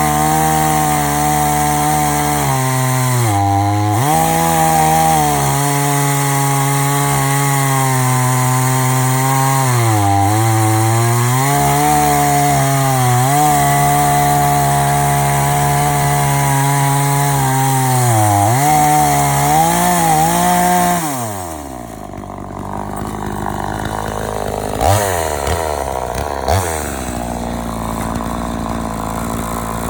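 Chainsaw in an Alaskan chainsaw mill running at full throttle through a log, its pitch dipping several times as it loads up in the cut. About 21 seconds in it falls back to idle and keeps idling, with two brief blips of the throttle near the end.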